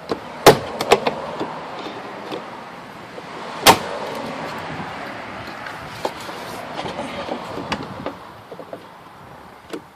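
Plastic clicks and knocks as a 2012 Mazda 5's door trim panel is worked off its clips, with two sharp snaps, about half a second in and near four seconds, over a rustling scrape of plastic.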